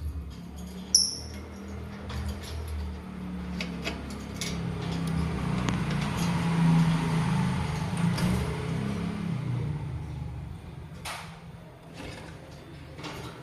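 Scattered sharp clicks of a lovebird's beak pecking at corn kernels, with one brief high note about a second in, over a low rumble that swells toward the middle and fades.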